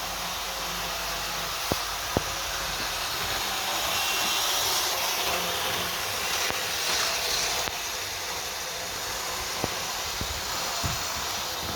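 Triang Blue Pullman model train running along the track: a steady hissing running noise that swells for a few seconds in the middle, with a few sharp clicks.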